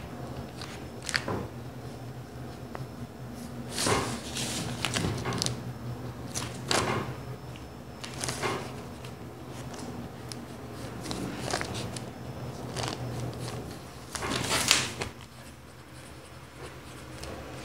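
Soft, scattered sounds of a paper pattern being handled, a small ruler laid on it and a ballpoint pen drawing and writing on the paper, over a faint steady low hum.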